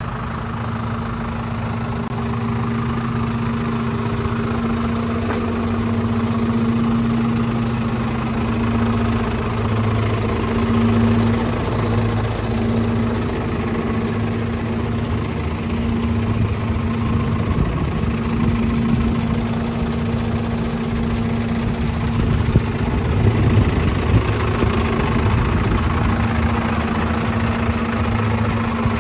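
Mercedes-Benz Unimog U20's four-cylinder turbodiesel engine idling steadily, a low, even drone that gets a little rougher and louder about two-thirds of the way through.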